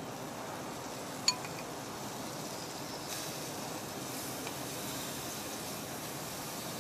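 A spoon clinks once against a serving bowl about a second in, over a steady hiss from the chicken cooking on the gas grill.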